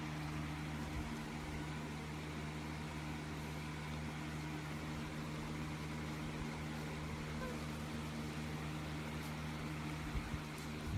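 Steady low machine hum with a faint hiss behind it, unchanging; a soft thump about ten seconds in.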